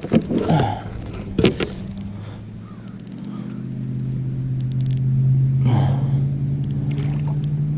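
An engine's steady low hum fades in about three seconds in and holds. It is preceded by a few sharp knocks and brief noisy handling sounds.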